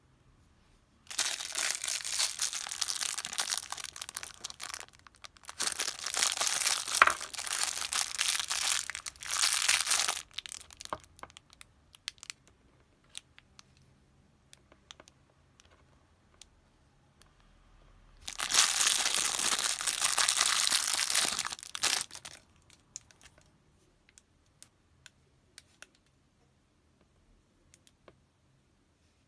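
Thin clear plastic bag crinkling and tearing as it is handled and opened, in three bursts of a few seconds each. Light clicks and taps of a small plastic figure being handled and set down on a table fall in the quieter stretches between them.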